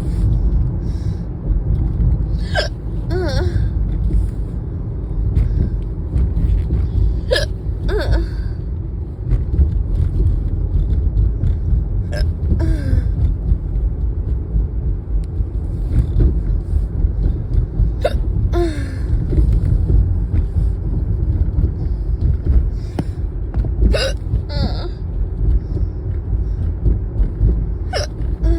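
A person hiccuping repeatedly, about every five seconds, each hiccup a sharp catch with a short squeaky vocal sound, sometimes two close together. Underneath is the steady low rumble of a car on the road.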